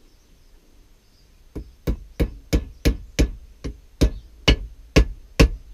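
Hammer blows driving a steel wedge into the ash haft of a rounding hammer head: sharp metallic strikes at about three a second, starting about a second and a half in.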